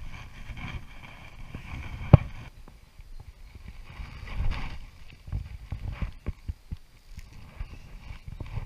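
Water splashing and sloshing around a landing net as a fish is let go, with scattered knocks of rod and gear handling close to the microphone. One sharp click about two seconds in is the loudest sound.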